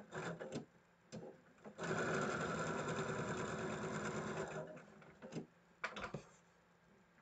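Electric sewing machine stitching a patchwork seam: a few short starts, then a steady run of stitching for about three seconds that slows to a stop. A few sharp clicks follow near the end as the piece is pulled free.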